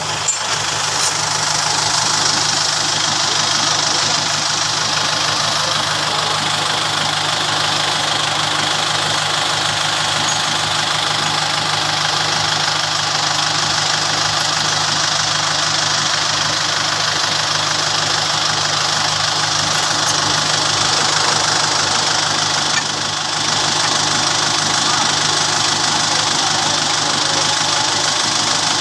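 Tractor engine running steadily at close range.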